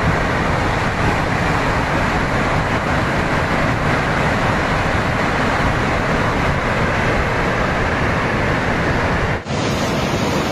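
Loud, steady rushing roar of a river swollen by flash flooding, with a brief break about nine seconds in where one clip cuts to the next.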